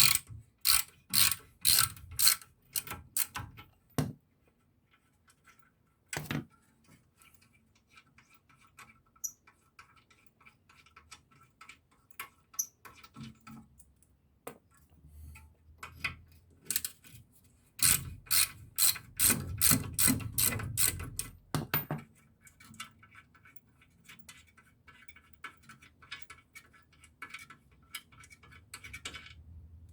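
Ratchet wrench clicking in two bursts of quick strokes, the first at the start and the second after about eighteen seconds, as the bolts holding a VAZ 2114's front ball joint are undone. Scattered lighter clicks and knocks of tools on metal fall in between.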